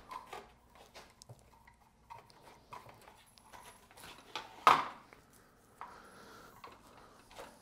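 Faint rustles and small clicks of insulated wire being worked out through a mini mill's wiring harness by hand, with one louder brief noise a little under five seconds in.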